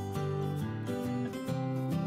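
Background music: a plucked acoustic guitar tune whose notes change every half second or so.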